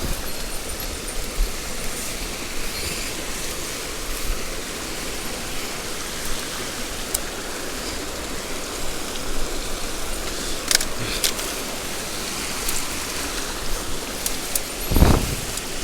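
Mountain stream water running steadily, with a few sharp clicks about eleven seconds in and a brief low thump near the end.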